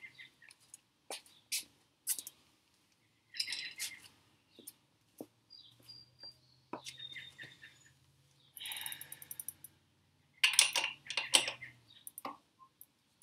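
A wrench and bike parts being handled: scattered clinks and clicks, with a louder patch of rattling and rustling a little before the end. Faint bird chirps now and then.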